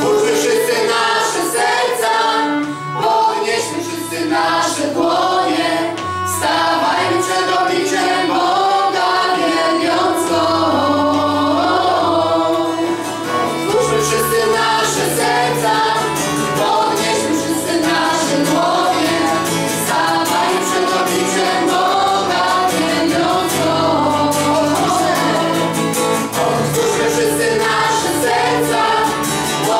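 Live worship song: several voices, mostly women's, singing together in Polish over a strummed acoustic guitar and changing low bass notes.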